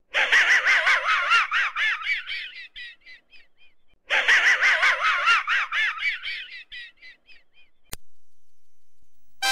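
Muttley's wheezing snicker laugh, the cartoon dog's sound effect, played twice: each time a rapid run of snickers that slows and fades out. A single click near the end.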